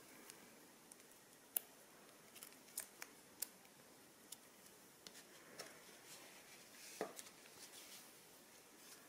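Faint, irregular sharp clicks and snips from slime-making materials being handled, about a dozen of them, the loudest about a second and a half in and again near seven seconds.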